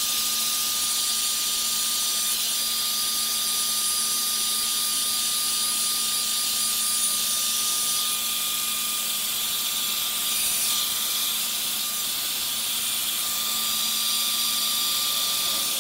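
Handheld hair dryer running steadily: an even rush of air with a constant thin motor whine, blowing over a small dog's wet coat.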